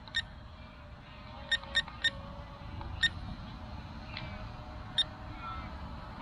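Short high electronic beeps from the drone's handheld remote controller, about seven of them at irregular spacing, three in quick succession about a second and a half in, over a low rumble.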